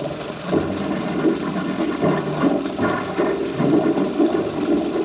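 Bell & Howell 2585 16mm film projector running, a continuous mechanical noise from its motor and film transport that wavers in level but never stops.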